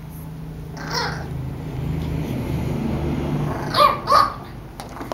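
Eight-week-old pug puppy barking twice, two sharp high yaps close together near the end, the loudest sounds here. Before them a low, steady growl runs for about three seconds, with a short yip about a second in.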